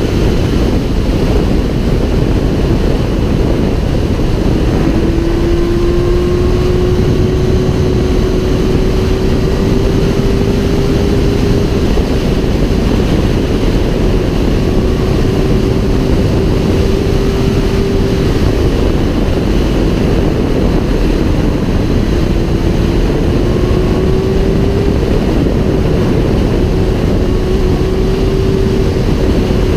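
Sport motorcycle at speed, heard from the rider's seat: loud wind rush over the microphone with the engine's steady high note underneath, climbing slowly about five seconds in and again a little past twenty seconds as the bike accelerates.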